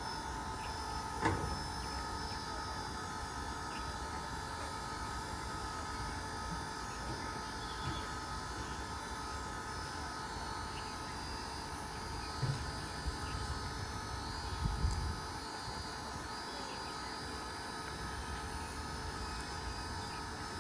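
EMD 16-cylinder 710G3B diesel engine of a WDP-4 (GT46PAC) locomotive running steadily with a humming, whining tone over a low rumble. A few short knocks sound about a second in and again around 12 to 15 seconds in.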